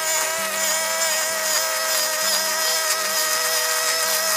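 Mitsubishi backpack brush cutter engine running steadily at high speed, a constant high whine, while its nylon line cuts grass. Quiet background music with a simple stepping melody plays underneath.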